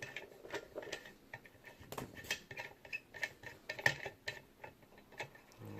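Lock picks and a tension tool working inside a vintage Yale & Towne safe deposit box lock: irregular small metallic clicks and ticks as the pins are picked.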